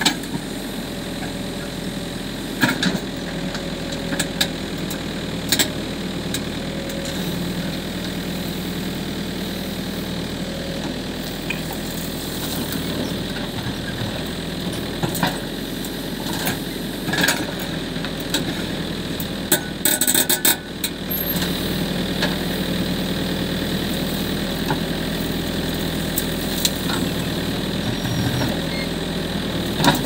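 Backhoe loader's diesel engine running steadily as it digs and loads earth into a dump truck, with occasional sharp knocks and a burst of clatter a little past the middle.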